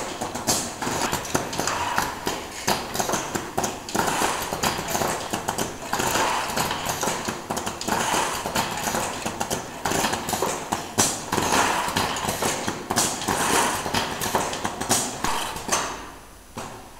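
Automated pneumatic assembly machine running: rapid clattering of its slides and actuators, with short bursts of hiss every second or two. It quietens about a second before the end.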